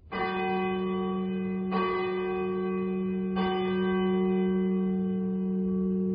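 A church bell struck three times, about a second and a half apart, each stroke ringing on with a deep hum under it and overlapping the next.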